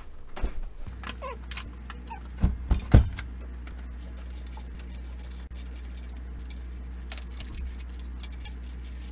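Metal hand tools and hardware clinking and knocking against the steel frame while the treadmill upright is bolted to its base. There are several sharp knocks in the first three seconds, the loudest about three seconds in, then a long run of light, irregular clicks over a steady low hum.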